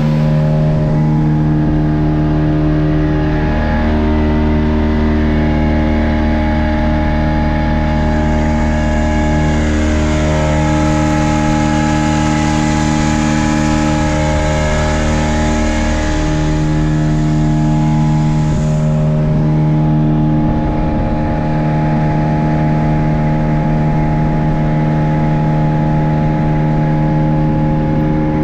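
Speedboat engine running steadily at speed, its note shifting slightly every few seconds. A hissing rush rides over it from about a quarter of the way in to about two thirds of the way through.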